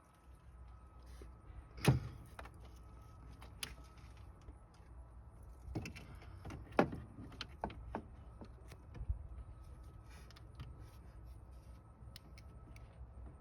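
Scattered sharp clicks and knocks of hand tools and car parts being handled during radiator removal, the loudest about two seconds in and again near seven seconds.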